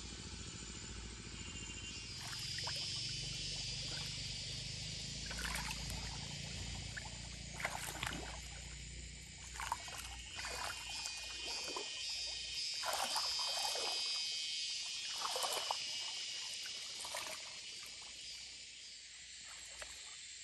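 Shallow stream water splashing and sloshing as hands work in it, in irregular bursts that start about two seconds in, come thickest in the middle and die away near the end.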